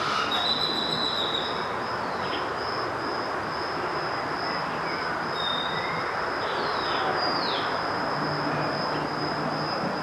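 Steady outdoor ambience: an even hiss under a constant high-pitched trill, with a few short high whistles and two quick downward chirps about seven seconds in.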